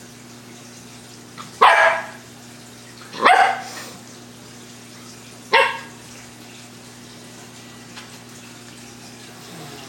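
A West Highland white terrier barking at a cat: three single sharp barks spaced one to two seconds apart, then no more.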